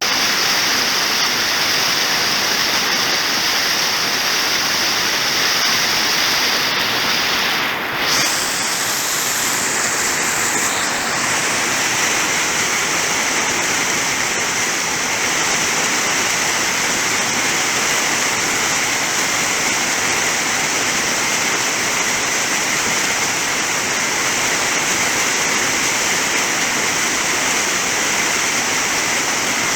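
Waterfall rushing steadily: a loud, even roar of falling water, with a brief dip about eight seconds in.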